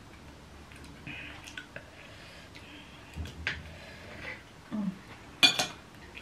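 Fork and spoon scraping and clicking against a ceramic plate while eating, with one sharp ringing clink about five and a half seconds in.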